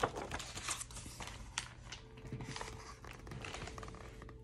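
Paper pages of a picture book being turned, rustling and crinkling in a run of short, irregular crackles.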